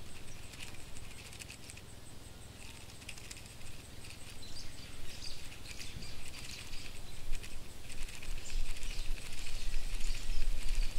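Skittering sound effect of a cockroach scuttling: fast, irregular dry ticks and rustles over a low rumble that grows louder in the last few seconds.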